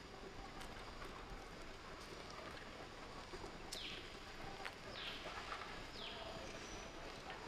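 Outdoor ambience in which a bird gives a short, high call that falls in pitch, three times in the second half about a second apart, with a few faint clicks.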